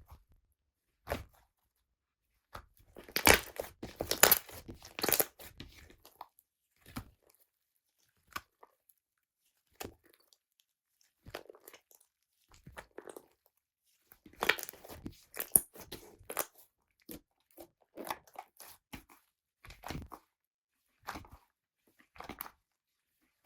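Slime being squeezed and pulled apart by hand, giving irregular bursts of short crackling pops. The pops cluster densely about three to six seconds in and again around fourteen to sixteen seconds, with scattered single pops between.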